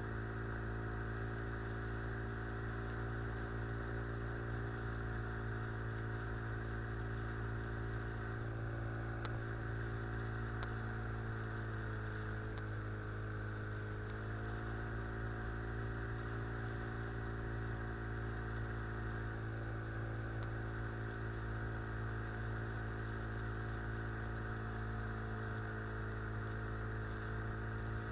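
Outboard motor running steadily, pushing the boat upriver; its pitch sags slightly about twelve seconds in and picks back up a couple of seconds later.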